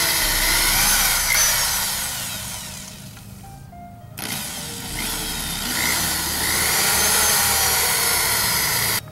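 Cordless drill boring a larger hole through a metal bracket strip: the motor whines and the bit grinds into the metal, eases off about three seconds in, then bears down again and stops suddenly near the end.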